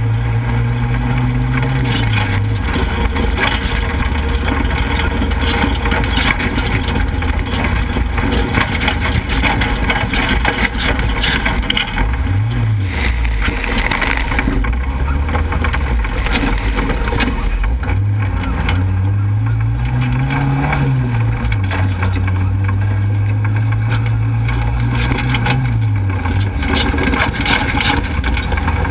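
Off-road race truck's engine, heard through a hood-mounted camera under heavy wind and trail noise. The engine pitch rises and falls several times as the driver accelerates and backs off. About halfway through there is a brief loud rush as mud sprays over the hood.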